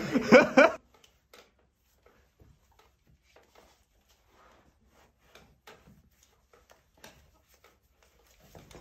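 Men laughing loudly, cut off abruptly within the first second. Then a quiet small room with only faint, scattered clicks and rustles.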